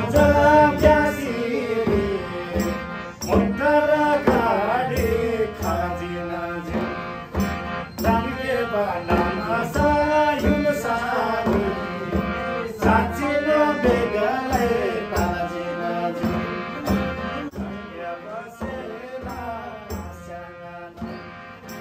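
Tamang folk song: voices singing over a harmonium's steady held chords, with regular beats struck on damphu frame drums.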